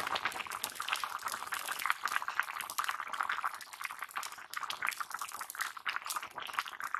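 Fish curry boiling hard in an open metal pan: a dense, irregular crackle of popping bubbles.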